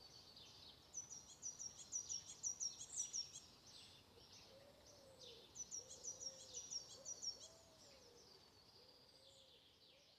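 Faint woodland birdsong: runs of quick, high chirping notes over a light background hiss, with a lower repeated call joining about halfway; it fades away near the end.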